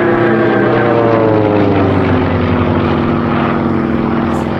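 A Yakovlev Yak-55 aerobatic plane's nine-cylinder M-14P radial engine and propeller running overhead. The pitch falls over the first two seconds, then holds steady.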